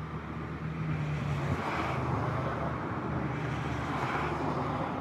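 Vehicle engine idling steadily, with two swells of passing-car noise rising and fading over it.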